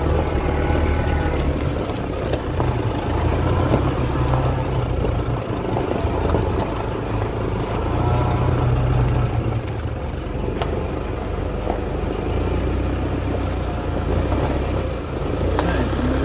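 Car on the move, a steady low engine-and-road rumble with a few faint clicks and rattles.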